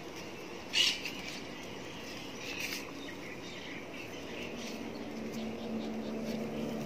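Outdoor ambience with a few short, high bird chirps, the loudest about a second in. A faint steady low hum comes in during the second half.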